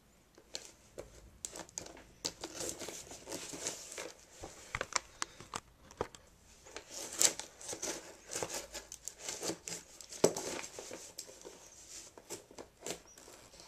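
A folding knife cutting packing tape on a cardboard shipping box, with tape tearing, cardboard scraping and crinkling, and scattered sharp clicks and knocks as the box is handled.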